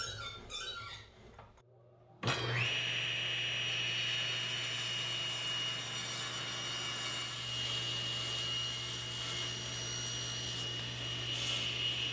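Table saw switched on about two seconds in, its motor spinning up with a brief rising whine and then running steadily. The blade then rips a taper along a Douglas fir leg held in a tapering jig, and the cutting noise eases off near the end.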